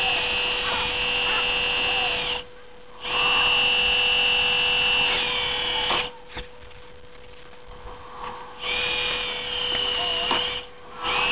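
Electric motor of a 1:14.5 Wedico Mercedes-Benz NG 3535 RC dump truck whining in stretches, its pitch gliding as it speeds up and slows down. It cuts out briefly about two and a half seconds in and again near the end, with a longer quiet spell in the middle.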